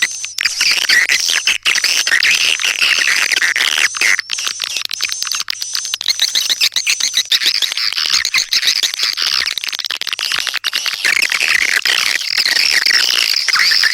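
Swiftlet lure call: a dense, continuous chatter of many overlapping high swiftlet chirps and twitters. This is the playback that swiftlet farmers use to draw birds into a nest house.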